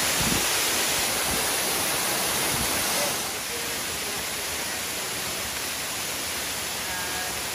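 Waterfall pouring over rock: a steady rush of water, dropping a little in level about three seconds in.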